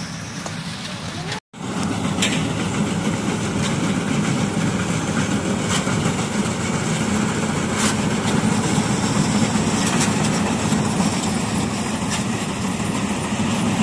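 Combine harvester's diesel engine running steadily under load as it cuts rice paddy, a loud continuous drone with the clatter of the machine's cutting and threshing works. It starts abruptly about a second and a half in, after a short break.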